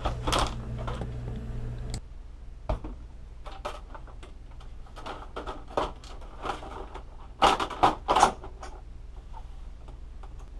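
Plastic parts of an Epson WF-3640 printer's housing clicking and knocking as they are handled and fitted into place, with a cluster of louder knocks about seven and a half seconds in, over a steady low hum.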